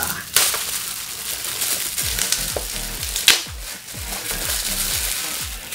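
Packaging of a parcel being torn open and handled, with steady crinkling and rustling and a couple of sharper, louder crackles.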